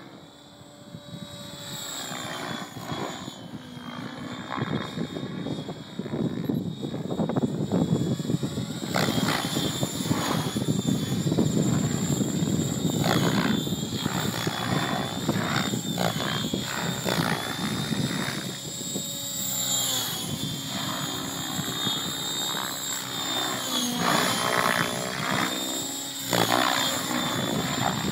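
Electric Align T-Rex 700 RC helicopter in aerobatic flight: rotor noise with a steady high whine, growing louder over the first several seconds as it comes closer. The whine wavers at times as the VBar governor holds head speed at 1850 rpm through the manoeuvres.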